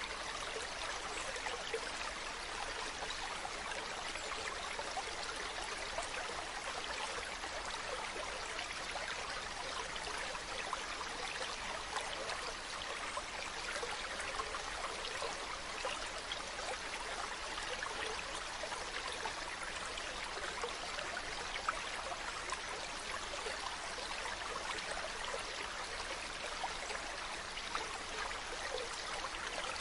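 A mountain stream running over rocks: a steady rush of water with fine splashing and trickling.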